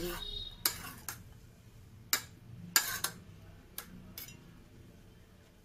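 A metal spoon clinking and tapping against a steel bowl about six times, spaced irregularly, while chopped vegetables are scraped in and mixed.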